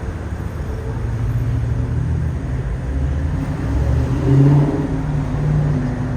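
Low rumble of an engine, with a low hum that shifts in pitch, swelling about four seconds in and then easing off.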